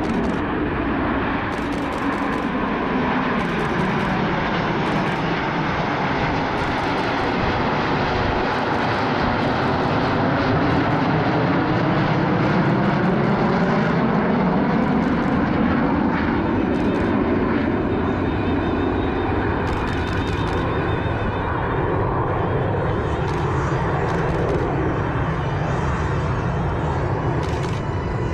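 A formation of Aermacchi MB-339 jet trainers with Rolls-Royce Viper turbojets flying past, a steady jet sound that swells to its loudest about halfway through, its pitch sweeping as the aircraft pass. Camera shutter clicks in quick bursts sit over it.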